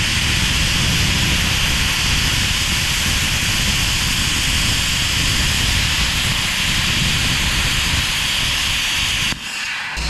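Plasma cutter gouging (scarfing) a weld out of plate, its arc and air jet a loud steady hiss that cuts off about nine seconds in.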